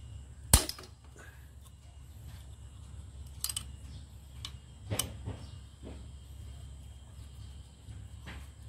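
Scattered sharp clicks and knocks from hands and a tool working on the centrifugal clutch shoes and spring of a grass-cutter engine, the loudest a single knock about half a second in, over a steady low hum.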